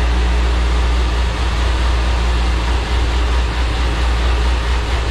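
Steady, loud mechanical drone with a deep hum underneath, holding an even level with no revving or rise in pitch. This is the dyno cell between pulls rather than an engine under load.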